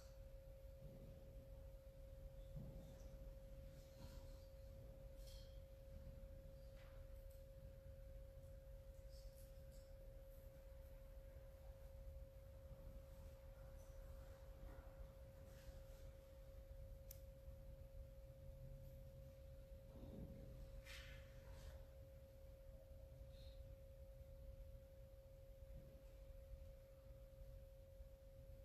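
Near silence: room tone with a faint steady hum held at one unchanging pitch, over a low rumble, with a few faint ticks.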